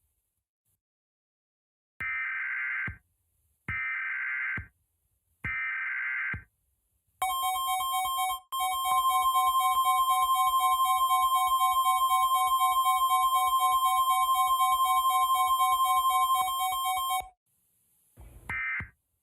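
Emergency Alert System broadcast signal: three buzzy digital header bursts about a second apart, followed by the two-tone attention signal held steady for about ten seconds, then short data bursts near the end.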